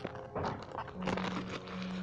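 Plastic shrink-wrap on a box of oil pastels crinkling in short, irregular crackles as the box is handled, over quiet background music holding a low note.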